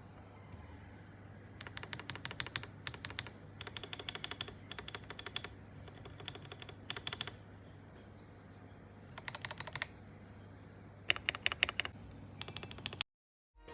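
Typing on an aluminium-cased Akko Mod007 mechanical keyboard with lubed Akko CS Rose Red switches and PBT keycaps: short runs of rapid keystrokes separated by pauses, over a faint steady low hum.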